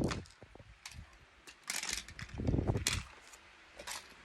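Small fidget toys being handled and piled up: a sharp knock at the start, then two bursts of rustling and clattering about two and three seconds in.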